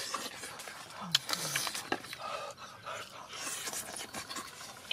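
A person eating noisily: scattered short chewing and lip-smacking clicks, breaths, and a couple of brief low falling hums about a second in.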